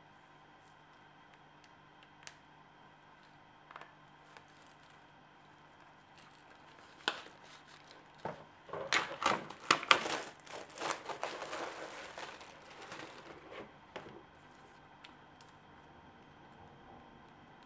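Clear plastic wrapping crinkling and tearing as it is pulled off a stack of cards, in a dense burst of a few seconds about halfway through. Faint clicks of card handling come before and after it.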